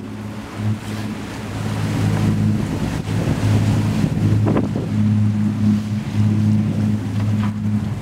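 Wind and rushing, splashing water as a Beneteau Oceanis 40 sailing yacht drives through rough seas, with wind buffeting the microphone. A steady low drone runs underneath, and the whole sound grows louder about two seconds in.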